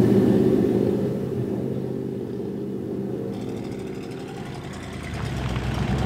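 Car engines running as cars drive by: one engine is loudest at the start and fades away, then a second, deeper engine sound grows louder from about five seconds in.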